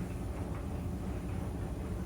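Clothes dryer running: a steady low rumble with faint soft knocks now and then, as of the load tumbling in the drum.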